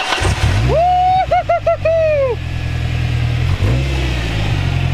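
Truck engine, jump-started off a drone battery, catches right at the start and settles into a steady idle. About a second in, someone lets out a long, wavering whoop of a cheer over it.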